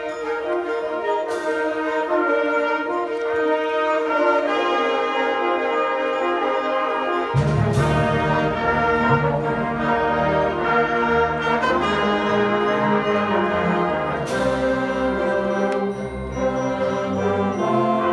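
A middle-school concert band playing, with sustained brass and woodwind chords. Low brass comes in strongly about seven and a half seconds in, and three sharp crashes ring out, about a second and a half, eight and fourteen seconds in.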